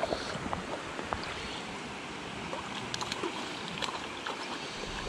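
Shallow river riffle running steadily around a wading angler, with small, scattered splashes and knocks. A hooked brown trout thrashes at the surface, splashing a few seconds in.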